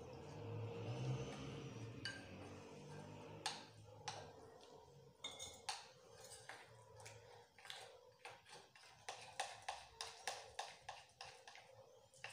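Metal spoon clinking against a glass bowl while besan (gram flour) batter is stirred: scattered taps at first, then quicker runs of clinks near the end. A low hum is heard in the first few seconds.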